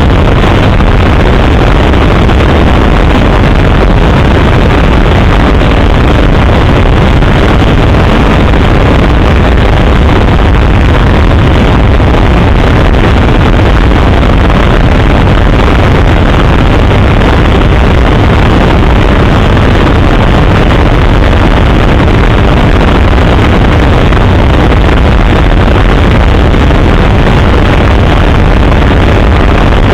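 Helicopter in flight: engine and rotor noise, loud and steady without a break.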